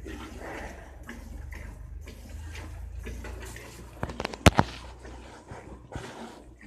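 Milk squirting into a steel pail as a water buffalo is milked by hand, in rhythmic spurts about twice a second. A few sharp knocks about four and a half seconds in are the loudest sound.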